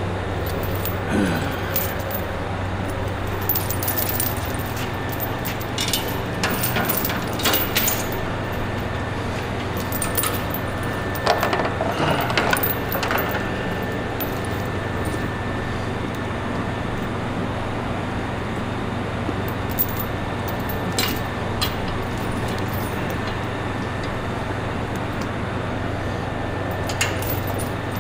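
Steel tire chain links clinking and rattling as the chain is handled and draped by hand over a tractor's rear tire, in irregular bursts that are busiest in the first half and again around the middle, over a steady low hum.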